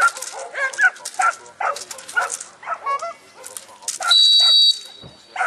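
Dog barking repeatedly, about three barks a second, at a decoy in a padded bite suit during bite work. About four seconds in a shrill whistle blows for about half a second, the loudest sound, then trails off faintly.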